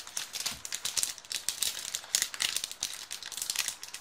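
Foil wrapper of a Pokémon card booster pack crinkling and tearing as it is pulled open by hand, a dense, irregular crackle.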